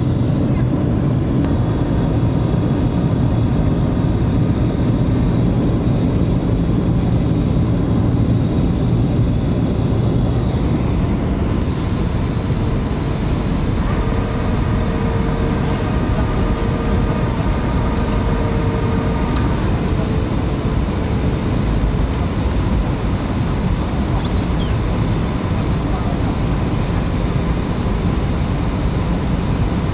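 Jet airliner cabin noise on descent: the engines and the air rushing past the fuselage make a steady, loud low rumble. A few seconds of a held, pitched voice-like sound rise above it around the middle.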